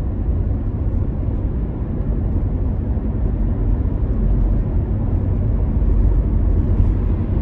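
Cabin noise of a 2019 Corvette Z06 with its supercharged 6.2-litre V8, cruising along the road: a steady low rumble of engine, tyres and wind heard from inside the car.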